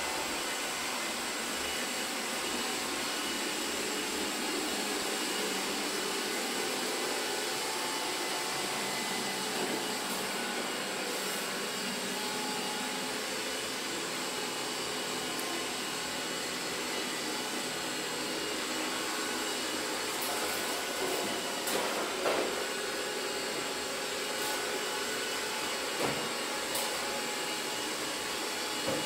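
Roborock S5 Max robot vacuum running steadily, a constant suction hiss with a faint steady whine. It is interrupted by a few short knocks in the second half as it works around chair legs.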